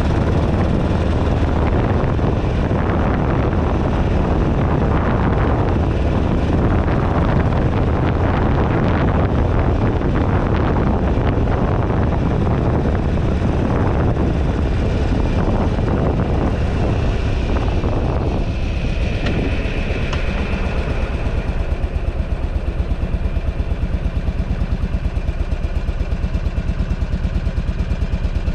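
Wind buffeting the handlebar-mounted camera while the 2008 Buell Ulysses XB12XT's air-cooled V-twin runs on the road. About two-thirds of the way in, the wind noise dies away with a brief high tone, leaving the V-twin's evenly pulsing idle.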